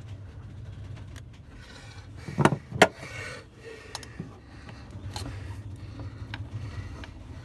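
Hand-work sounds of a new spin-on fuel filter being fitted to a marine diesel engine: light rubbing and a few scattered clicks, with two sharp knocks close together about two and a half seconds in. A low steady hum runs underneath.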